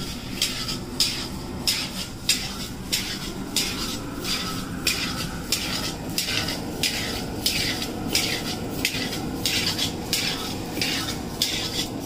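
Steel ladle scraping and stirring grain being dry-roasted in a metal kadai, in regular strokes about one and a half times a second, over a steady low rush.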